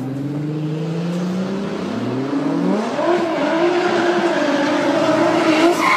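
Nissan Skyline GT-R engine accelerating hard as the car approaches. Its pitch climbs steadily for about two and a half seconds, jumps higher, then holds high and wavering while it grows louder.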